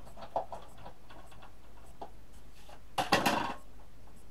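A small thin metal cutting die being positioned on cardstock: a few light clicks, then a short rattling clatter about three seconds in.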